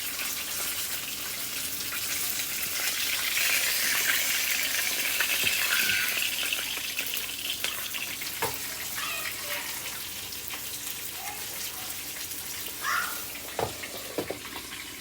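Battered chicken thighs frying in hot oil: a steady sizzle that swells about four to six seconds in and then eases off, with a few light knocks near the end.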